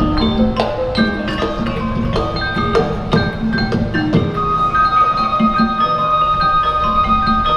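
Sundanese gamelan degung ensemble playing: quick struck metal notes in a steady rhythm over lower thuds, with one long high note held through the second half.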